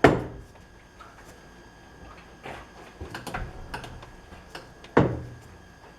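Two sharp knocks of tools or parts being handled at a metal lathe, one at the start and one about five seconds in, each ringing briefly, with smaller clicks and taps in between.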